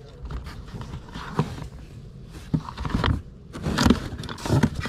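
Small objects knocking and scraping against each other and the cardboard as a hand rummages through a box of odds and ends, in short irregular knocks and rustles.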